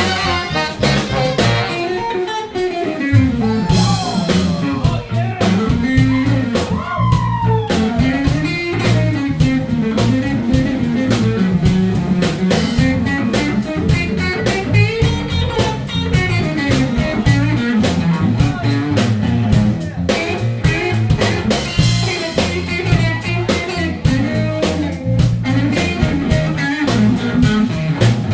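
Live klezmer-punk band playing: drum kit and bass carry a steady groove under a lead melody that slides up and down in pitch.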